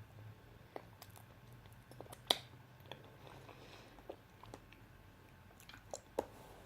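Close-up mouth sounds of eating peanut butter and banana: soft, sticky chewing with scattered sharp lip and tongue smacks, the loudest a little past two seconds in. A faint steady low hum sits underneath.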